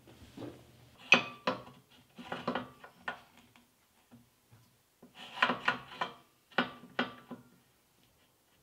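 Metal parts and hand tools clinking and knocking in four short clusters, with a little ringing after the sharper knocks, as a lathe is being reassembled.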